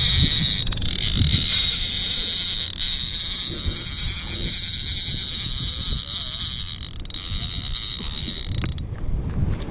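Conventional reel's drag (Okuma Connector CV 45L) giving a steady high buzz as a heavy fish pulls line off it, cutting out briefly near the end. Low rumble of wind on the microphone underneath.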